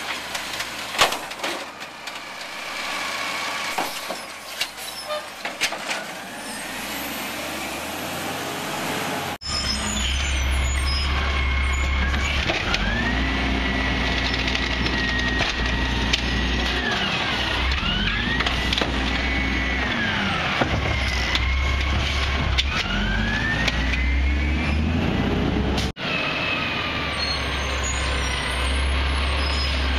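Automated side-loader garbage truck with an Amrep body on a Peterbilt chassis at work: sharp knocks and clatter as a cart is emptied into the hopper, then the diesel engine speeding up, holding and dropping back twice with a whine rising and falling along with it while the hydraulic arm grabs and lifts a cart.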